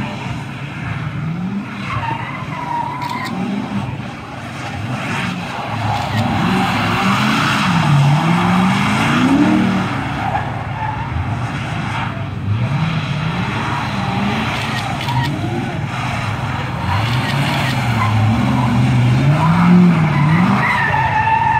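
LS1 V8 in a Nissan 300ZX (Z32) revving up and down again and again as the car slides on a wet skidpan, its tyres spinning on the wet asphalt.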